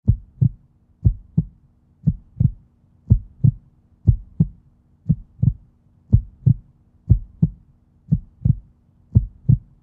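Heartbeat sound effect: pairs of deep thumps, lub-dub, repeating about once a second, over a faint steady low hum.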